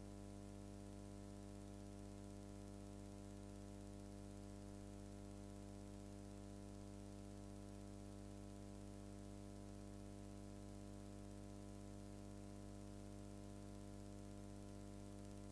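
Near silence: a steady electrical hum with its overtones and a faint hiss, unchanging throughout.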